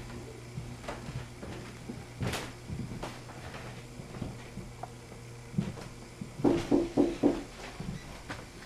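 Scattered knocks and clicks, then a quick run of four or five heavier thumps about six and a half seconds in.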